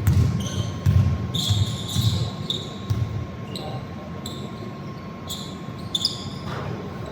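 Basketball bouncing on a hardwood court, about one thump a second in the first half, with sneakers squeaking on the floor throughout.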